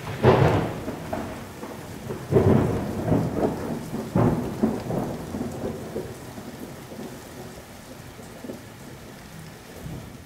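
Title-sequence sound effect of a storm: three loud thunder-like booms about two seconds apart, each rumbling away, over a steady rain hiss that slowly fades out.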